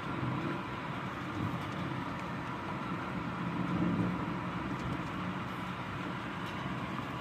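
Steady rumbling noise of a rainstorm, swelling slightly about four seconds in.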